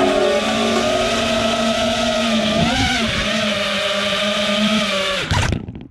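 A 6S FPV quadcopter's brushless motors (3B 2207 1750KV) whining steadily. The pitch briefly rises and falls about three seconds in, then the whine drops and cuts off abruptly near the end as the motors stop.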